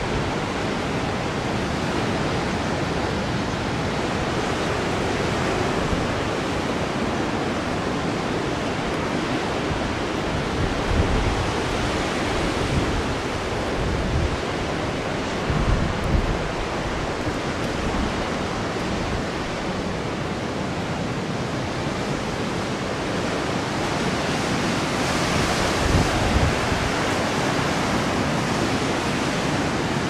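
Heavy ocean surf breaking on a pebble beach below, a steady rushing wash of waves. Wind buffets the microphone now and then with brief low rumbles.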